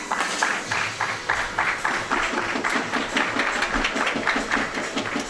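Background music with a fast, steady pulse: short clicking beats throughout, joined about two seconds in by a low note repeated about five times a second.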